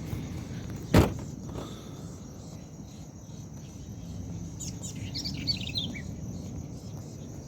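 A sharp click about a second in. Past the middle, a bird calls a quick run of falling chirps over a steady low rumble.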